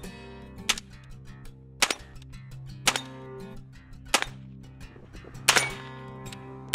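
AR-15 rifle firing single shots at a steady pace, about one shot a second, each a sharp crack with a short ring after it, around six shots in all.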